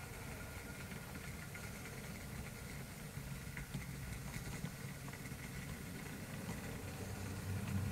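Model railway locomotive running slowly along the track: a steady low rumble with a faint thin whine and occasional light clicks, growing a little louder near the end as it comes closer.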